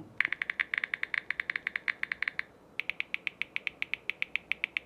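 Samsung phone keyboard's key-press sound: rapid typing, a fast run of short, crisp ticks about eight or nine a second, with a brief pause about two and a half seconds in.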